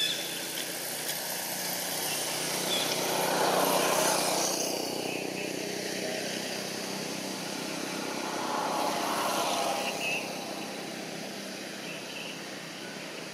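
Outdoor ambience with passing motor traffic: two vehicles swell up and fade away, one about four seconds in and another about nine seconds in, over a steady background hiss.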